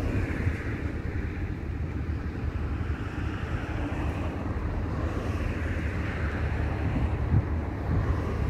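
Wind rumbling on the microphone, with a hiss of passing road traffic that swells and fades several times.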